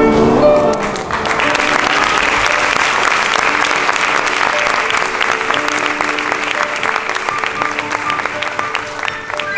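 Audience applauding, starting about a second in and easing off near the end, over background music with held notes.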